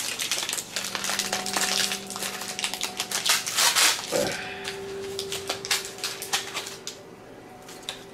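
Small hard plastic parts being handled, with a run of irregular clicks and clatters and a louder rustle about three and a half seconds in. A faint steady hum runs underneath.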